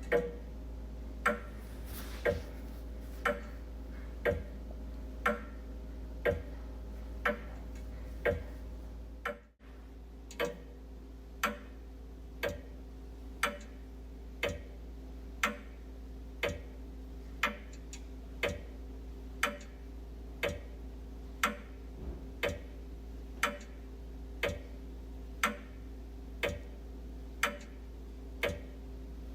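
Wall clock ticking steadily, about once a second, over a steady low hum. The sound drops out briefly about nine and a half seconds in.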